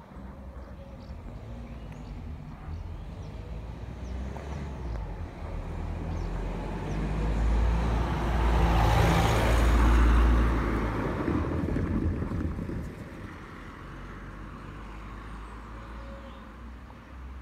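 A road vehicle passing: engine and tyre noise swells for several seconds, peaks about nine seconds in, then fades away.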